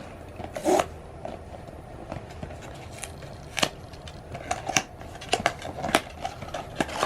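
Blind-box packaging being opened by hand: scattered crackles and sharp clicks of plastic wrap and cardboard, loudest about a second in and again in a cluster past the middle.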